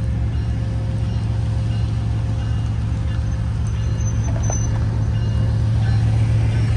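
Road traffic: a steady low engine drone, with a minivan driving across the railroad crossing in the second half, the sound swelling slightly as it comes past.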